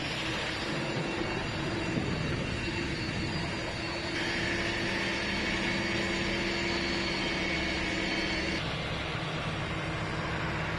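Steady drone of a fire engine's diesel engine and pump running, mixed with a rushing noise, as hoses are fed. From about four seconds in a sharper hum and whine stand out more, then drop back near the end.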